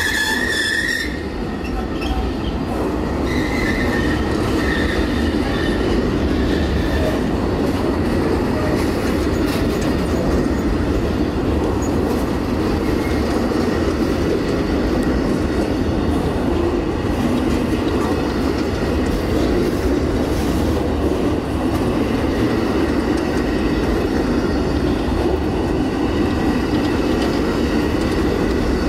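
Amtrak Auto Train's enclosed bi-level autorack cars rolling past at speed: a steady rumble and clatter of steel wheels on rail. A high wheel squeal stops about a second in.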